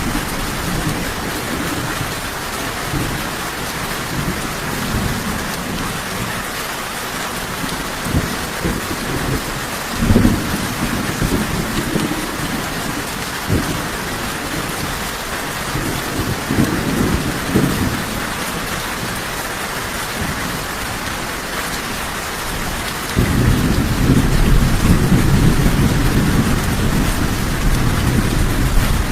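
Steady heavy rain with rolls of thunder rumbling underneath. A louder, longer thunder roll starts about three-quarters of the way through and carries on.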